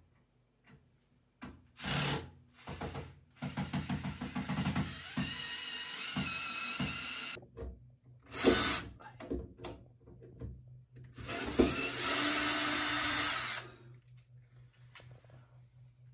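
Ryobi cordless drill-driver running in several short bursts, the longest about four seconds, driving screws up into the wooden countertop frame.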